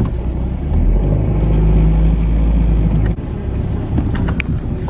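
Car driving, a steady low engine and road rumble heard inside the cabin, swelling about a second in and dipping briefly about three seconds in.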